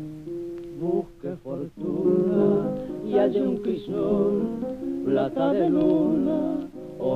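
Old tango recording with a dull, narrow sound. A short piano and guitar passage gives way about a second in to male voices singing with strong vibrato over the accompaniment.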